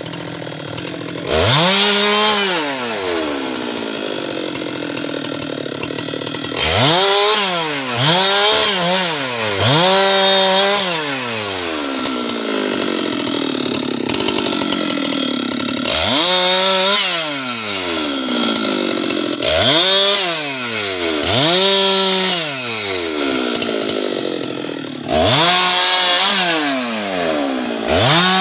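Husqvarna 390XP two-stroke chainsaw revved again and again. Each burst rises sharply to full throttle, holds for a second or two, then drops back to idle, about ten times.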